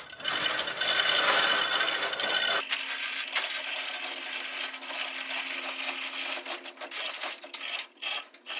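Pressure washer spraying: a steady hiss from the water jet, broken by a few short stops near the end.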